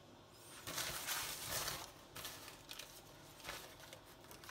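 Baking paper rustling and crinkling as it is handled: one long rustle starting about half a second in, then a few short crackles.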